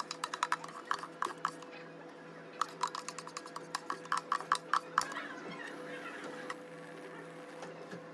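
Quick runs of light clicks and taps, then a brief rustling noise about five seconds in, over a steady machine hum.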